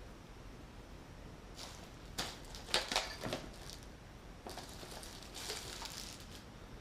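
Packaging being handled and rustled while a boxed power tool is unpacked: bunches of short crinkles and clicks, about two seconds in and again about four and a half seconds in.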